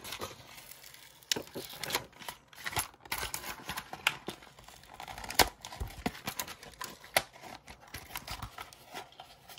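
Packaging of a Micro Machines pack being handled to get the toy vehicles out: irregular clicks, snaps and crinkling of plastic and card, with sharper snaps about five and seven seconds in.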